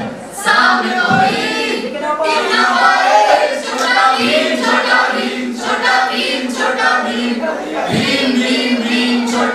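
Voices singing a song together, with no clear instrumental backing.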